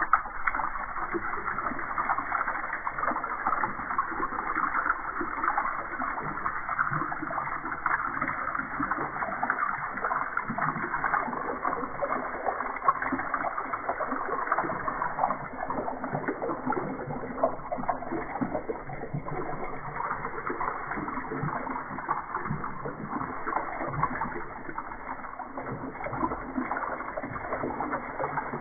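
Water showering from a watering-can rose into a metal tub, a steady splashing on the water and tub floor.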